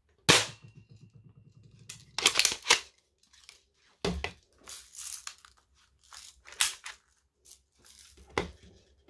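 Airsoft Mossberg 500 pump-action shotgun firing with one sharp snap just after the start. About two seconds in, the pump is worked back and forward in two quick clacks, followed by scattered knocks and rattles as the gun is handled.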